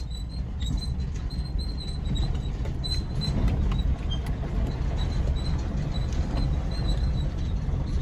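Pickup truck moving slowly over rough pasture, heard from inside the cab: a steady low rumble with faint intermittent squeaks and light clicks.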